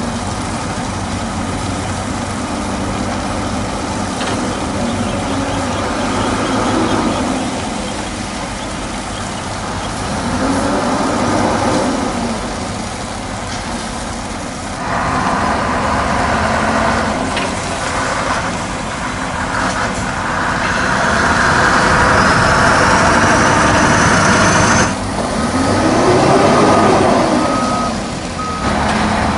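Heavy diesel truck engines of Scania and Volvo tractor units running and manoeuvring, revving up and down in pitch twice. About halfway through comes a loud hiss lasting about ten seconds.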